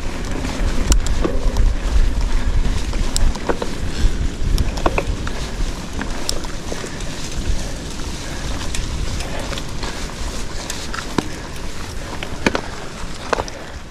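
Bicycle ridden over a rough dry trail: continuous tyre and frame rattle with many sharp clicks and knocks, over a low rumble of wind on the microphone that is heaviest in the first half.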